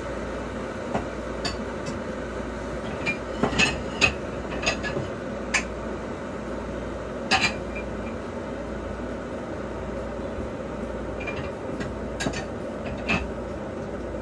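Stainless steel electric kettle at a boil: a steady rushing of boiling water, with scattered sharp clicks and clinks.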